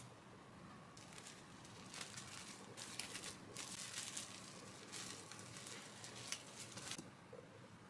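Plastic cling wrap crinkling as hands fold it tightly around a sandwich: faint, uneven rustling with sharp little crackles, starting about a second in and stopping near the end.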